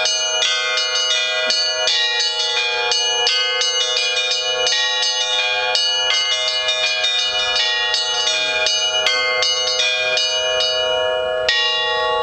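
Russian Orthodox tower bells of several pitches rung by hand: the small high bells chime in a quick, busy pattern over the steady ring of the deeper bells. The ringing stops with a last strike near the end, and the bells ring on.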